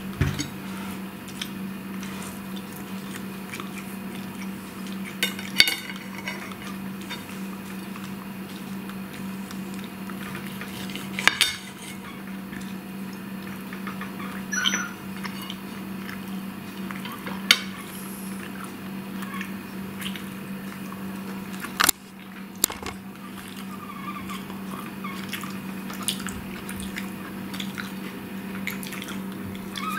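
A metal fork clinking and scraping on a plate during a meal, with a handful of sharp, louder clinks spread through and many fainter ticks between, over a steady low hum.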